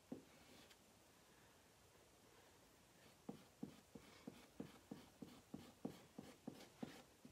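Faint, quick taps of a small hand applicator working chalk paste through a silkscreen transfer, about three a second, starting about three seconds in after a near-silent stretch.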